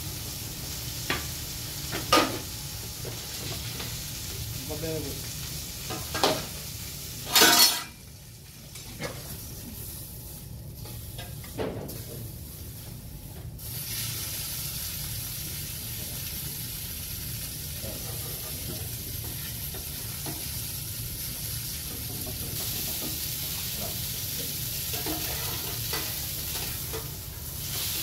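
Beef fillet sizzling in a hot pan, with several sharp clanks of utensils and pans in the first dozen seconds, the loudest about seven and a half seconds in. From about halfway the sizzle settles into a steady, bright hiss.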